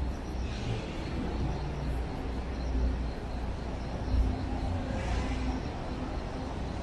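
City street ambience: a steady low rumble of road traffic, with a brief louder swell about four seconds in.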